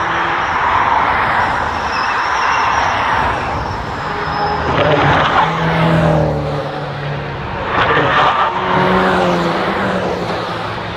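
Cars driving one after another through a bend on a race track, engines running under load and changing pitch. Bursts of tyre noise come about five and eight seconds in.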